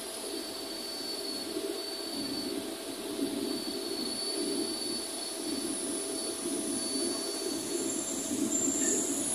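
Gallus One digital label press running at its full speed of 70 metres per minute: a steady mechanical drone with a faint high whine above it.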